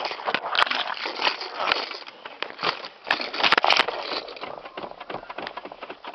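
Rustling, scraping and a quick run of clicks as hands fumble with a car's front seat and its fabric while a handheld camera is knocked about.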